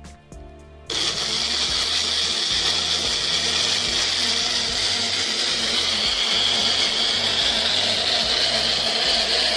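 Light background music, then about a second in a Wonderchef personal blender starts and runs steadily, pulping mango pieces into a smooth purée.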